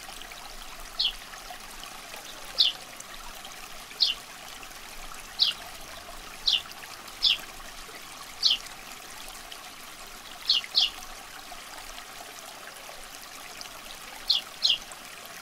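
Water trickling steadily, with about a dozen short, high chirps that fall in pitch, some coming in quick pairs, spaced irregularly over it.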